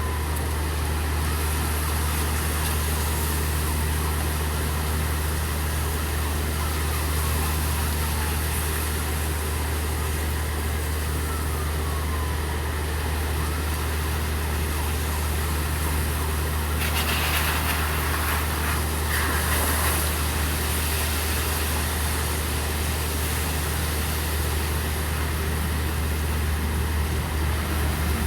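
Steady rain with the low, even hum of an idling delivery truck engine underneath. About seventeen seconds in, a louder hiss rises for a few seconds, like a car's tyres going through water.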